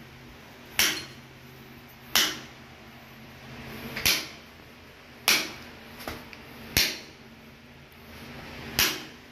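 Claw hammer tapping a nail held upright on floor tile: six sharp blows, roughly one every one and a half seconds. It is a dent knocked into the tile to mark the hole, so the drill bit won't slip when drilling starts.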